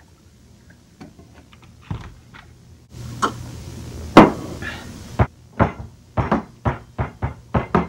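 Sharp knocks and clatters of objects on a kitchen counter. A loud bang comes about four seconds in over a few seconds of hiss, then a quick run of sharp knocks, about four a second, near the end.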